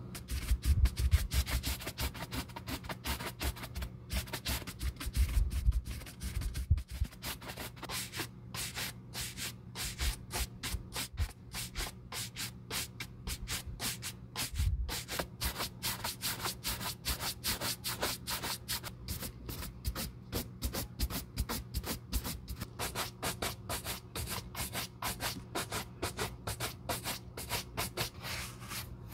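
Horsehair shoe brush swept quickly back and forth over a black leather ankle boot: a steady scratchy brushing at about four strokes a second, with a few low knocks in the first several seconds.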